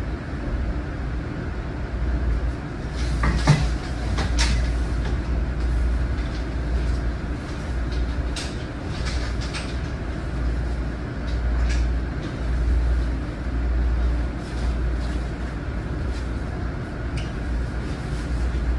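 Inside an LIRR M9 railcar: the steady low rumble of the train running, with a few sharp clicks and knocks, the loudest about three to four seconds in.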